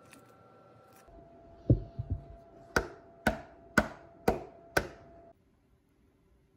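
A dark metal financier pan filled with batter being rapped on the table to knock out air bubbles: a few dull thuds, then five sharp knocks about two a second.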